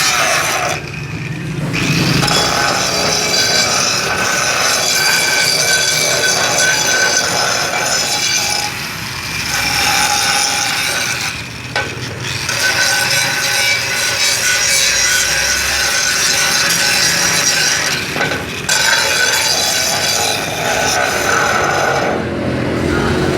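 Grinder working on a metal frying pan to clean it back to bare metal: a continuous abrasive grinding noise with a steady whine, broken by a few short pauses as the tool lifts off.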